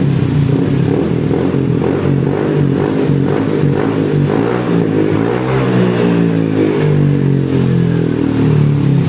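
Yamaha NMAX scooter's single-cylinder engine running through its stock muffler that has been gutted and had its outlet hole enlarged. The throttle is blipped a few times around the middle, so the pitch rises and falls.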